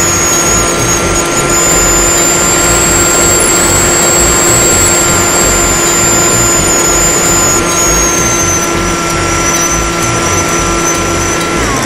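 Electric motor and propeller of a HobbyKing Bix3 RC plane in flight, heard from its onboard camera: a steady high whine with a hum beneath, rising a little in pitch early on and easing down about two-thirds of the way through, over a fluttering rush of wind on the microphone.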